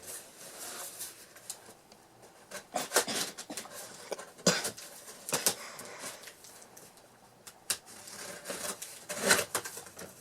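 Cardboard box and packaging being opened and handled, with irregular rubbing and rustling and scattered sharp knocks and scrapes.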